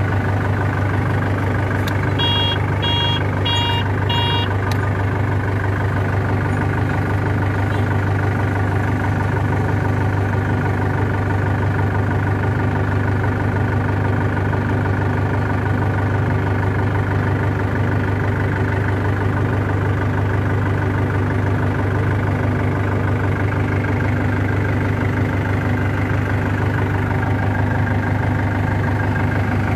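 Diesel engine of an L&T 491 tandem road roller idling steadily in neutral. About two seconds in there are four short electronic beeps.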